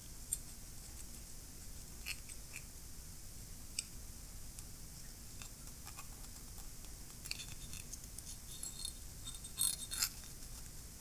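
Faint, scattered scrapes and light clicks of a wooden toothpick working grease into the steel head of a disassembled ratchet, around the gear and pawl, coming more often and a little louder near the end.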